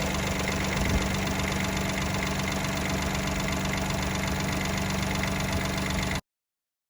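Daihatsu Mira Custom L275S's 660 cc three-cylinder engine idling steadily, with a high note pulsing rapidly over the idle. This is the abnormal noise of unknown cause that a new fan belt did not cure. The sound cuts off abruptly about six seconds in.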